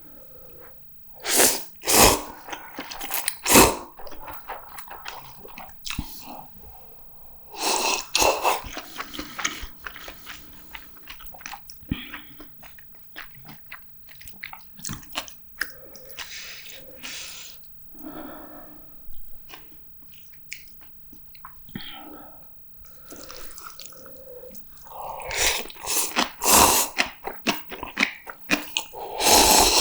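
Close-miked eating sounds from a meal of spicy instant noodles and fried-tofu rice balls: bites and wet chewing in an irregular run. Louder bursts come a couple of seconds in, around eight seconds in, and again near the end.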